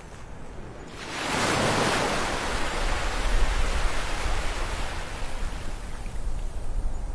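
Sea surf on a sandy beach: a wave swells up with a rush about a second in, then its washing hiss slowly eases off, over a low rumble.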